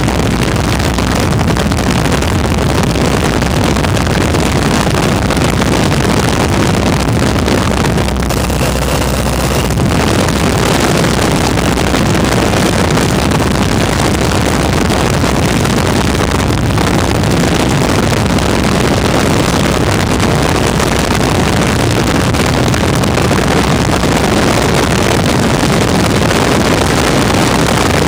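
WACO biplane's engine in flight, a loud steady drone mixed with wind rushing over the microphone.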